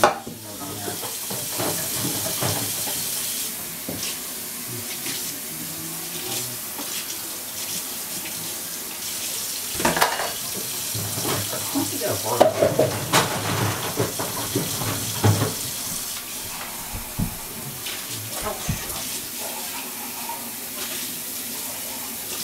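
Kitchen tap running into a sink as dishes are washed by hand, with dishes clinking and clattering in the sink, most busily about ten seconds in and again a couple of seconds later.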